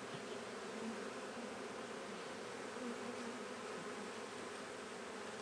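Honeybees of a newly captured swarm humming steadily in an open nuc hive.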